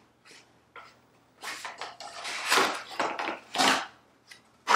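Cardboard box scuffing and rustling in the hands as a bamboo laptop stand is slid out of it: a run of short rubs and scrapes, busiest in the middle.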